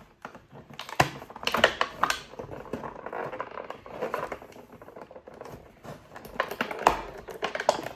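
Toy packaging being handled: irregular clicks and crackles as small parts are worked loose from their tray.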